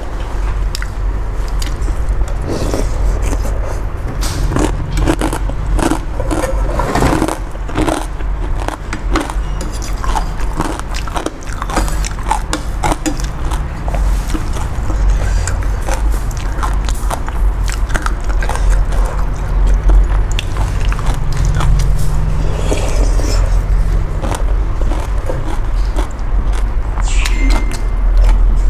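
Close-miked eating of boat noodle soup: chewing and slurping noodles, with chopsticks and a metal spoon clicking and scraping against the bowl. Many short clicks over a steady low hum.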